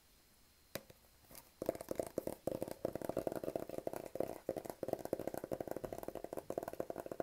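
Fingers tapping fast and continuously on the cardboard iPhone 8 box, close to the mic, for ASMR. There is one single tap under a second in, and the fast tapping starts about a second and a half in.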